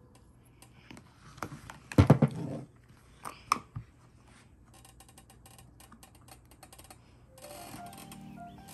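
Plastic pieces of a Play-Doh barber shop toy being handled, with scattered knocks, the loudest about two seconds in, then a fast run of small clicks. A simple tune starts near the end.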